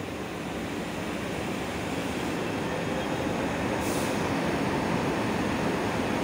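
WAP-7 electric locomotive powering up after its pantograph is raised: its auxiliary blowers run up as a steady hum that grows slowly louder, with a short hiss of air about four seconds in.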